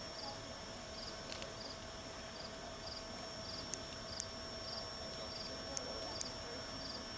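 Crickets chirping outdoors in a steady rhythm, about two short high chirps a second, over a low steady hiss.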